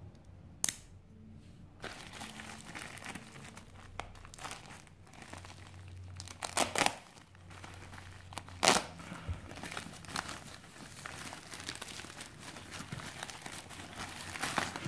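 Plastic mailer envelope crinkling and tearing as it is slit with a knife and pulled open, with loud rips about six and a half and nine seconds in. A single sharp click comes about a second in.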